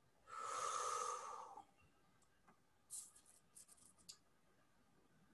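A short breathy hiss, about a second long, then a scatter of faint, sharp clicks about three seconds in, heard over a video-call microphone.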